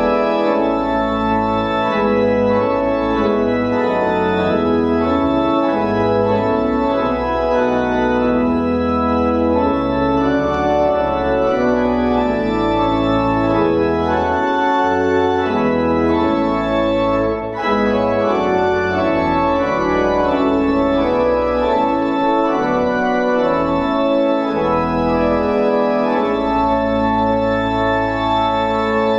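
Organ playing a hymn in full, sustained chords that change about once a second, with a brief break between phrases about two-thirds of the way through.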